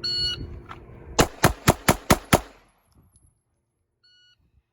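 A shot timer's start beep, then six pistol shots in quick succession, about a quarter of a second apart, fired on the draw against the timer. A second short beep from the timer near the end.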